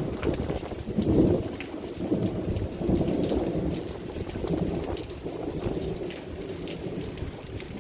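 Rainstorm: rain falling, with faint drop ticks, under a low rumble that swells and fades.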